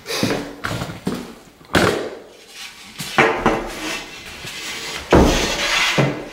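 Irregular knocks and clatter of wood, a handful of sharp hits spread across a few seconds, some followed by a short scraping rustle, as a hardwood flooring piece is handled and set into place.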